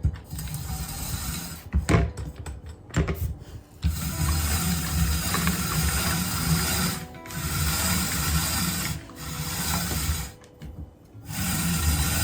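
Food processor shredding vegetables, running in several stretches with short pauses between them, after a few knocks as it is set up.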